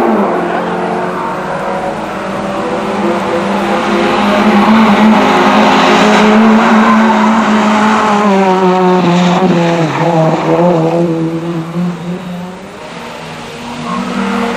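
Rally car engine at high revs as the car approaches and passes close by. Its pitch steps with gear changes and dips about ten seconds in as the driver lifts off. The sound fades away, then another car's engine rises near the end.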